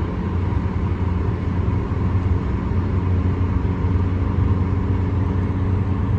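Steady running noise of a motor vehicle: a constant low engine hum under road noise, with no change in pitch.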